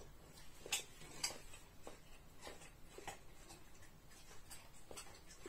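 Faint, irregular small clicks and crunches of eating at a table, spaced about half a second to a second apart.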